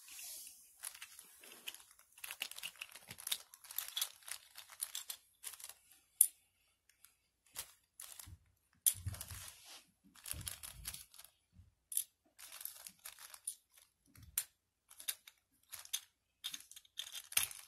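Hands handling small hard-plastic Schleich toy pieces and a little plastic carry case: a string of light clicks, taps and scratchy rustles, with a few soft thumps about eight to eleven seconds in.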